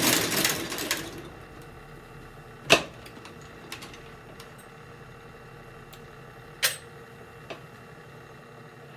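Curved-needle sole stitching machine running fast with a rapid mechanical clatter as it sews the midsole, stopping about a second in. A few isolated sharp clicks and knocks follow, the loudest about three seconds and about seven seconds in.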